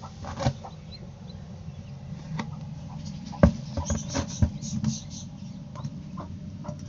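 Chick peeping from inside an unhatched hen's egg that is ready to hatch: a run of short high cheeps about four to five seconds in, set off by the egg being moved. A few sharp knocks from the egg and nest being handled.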